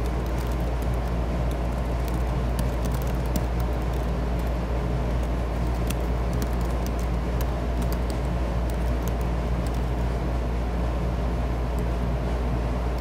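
Steady low hum or rumble throughout, with faint, irregular clicks of keys being typed on a computer keyboard.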